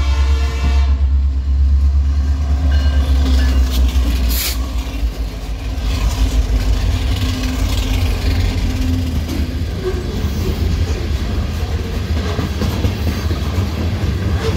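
BNSF freight train passing close by: a diesel locomotive horn finishes about a second in, then four-axle diesel locomotives go past with a deep engine rumble and wheel noise, with one sharp click about four seconds in. Freight cars then roll by.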